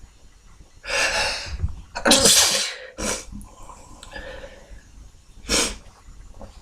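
A man sneezing: two loud, full sneezes about a second apart, followed by two shorter, sharp nasal bursts about three and five and a half seconds in.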